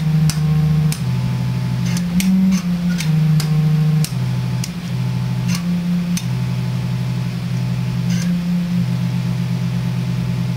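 Thermoacoustic organ, its flame-heated and liquid-nitrogen-cooled pipes sounding low steady tones, played as a melody of changing notes, at times two at once. Sharp clicks come now and then as keys are pressed and the pipes' exhaust caps open and close.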